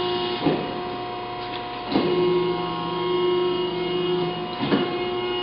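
Wysong CNC hydraulic press brake cycling: its hydraulic pump hums steadily, with sharp clunks about half a second in, at two seconds and near the end. A lower tone joins the hum between the second and third clunks, during the ram's stroke.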